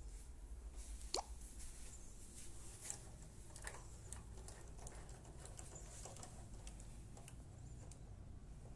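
Quiet room tone with a steady low hum, a few faint clicks, and one brief rising squeak about a second in.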